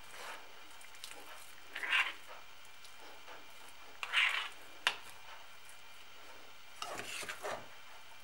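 Metal knife scraping and pressing thick ground-crackling pâté into a glass jar: a few short scrapes a couple of seconds apart, with one sharp click about five seconds in.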